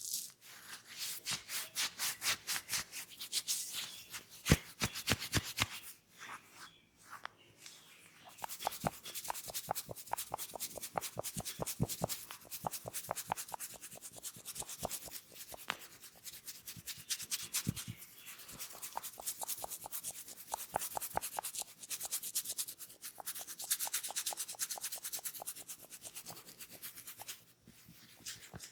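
Hands rubbing briskly over hair and scalp in a head massage, in quick rhythmic strokes several times a second, with a pause of about two seconds near the quarter mark.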